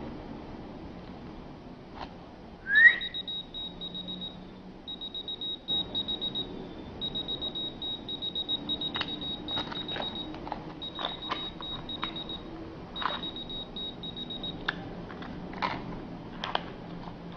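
A short rising whistle, then a whistle-activated key finder keychain answering with high-pitched rapid beeping in five groups over about twelve seconds, with scattered clicks.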